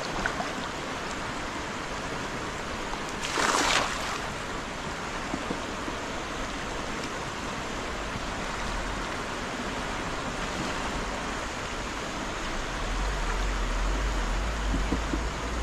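Steady rush of flowing river water, with a brief louder burst of noise about three seconds in and a low rumble near the end.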